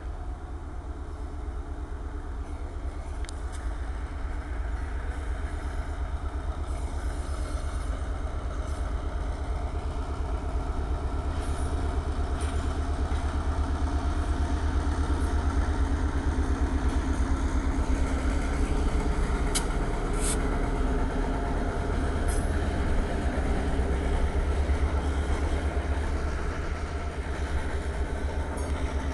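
Freight train passing close by, with a heavy low rumble. It grows louder over the first half as the diesel locomotive comes by, then stays loud as the freight cars roll past, with a few sharp clicks.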